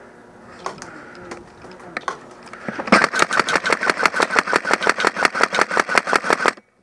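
Airsoft gun firing one long full-auto burst of sharp, evenly spaced shots, about ten a second, lasting some three and a half seconds and cutting off sharply. Faint rustling and a few light knocks come before it.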